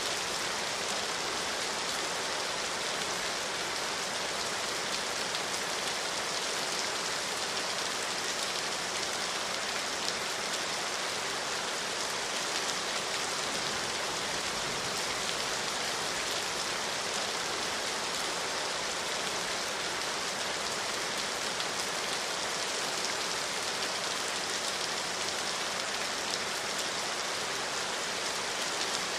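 Steady rain falling, an even hiss of many fine drops with no thunder.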